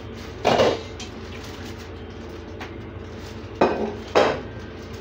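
Stainless steel pot clanking against the metal grates of a gas range: one clatter about half a second in, then two more close together near the end.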